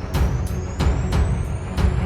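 Dramatic documentary soundtrack music: heavy drum hits, about three a second, over a deep low end, with a thin high tone that rises slowly.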